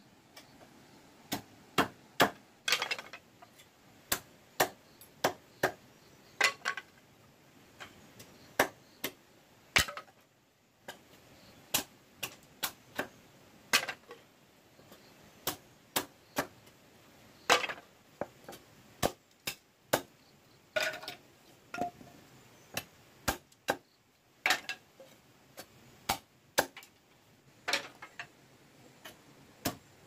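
Machete chopping and splitting green bamboo on a wooden block: sharp, irregular knocks, about one to two a second, with a couple of short pauses.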